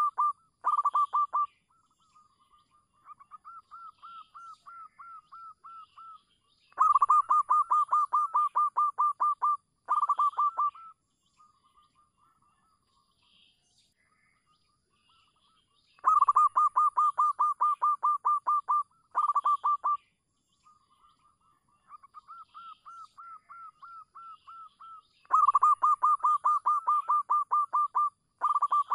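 Zebra dove (perkutut) cooing song: rapid runs of short, staccato notes. A softer run is followed by a loud run of about three seconds and a brief second burst. The same sequence comes round three times, as a calling song used to lure other zebra doves.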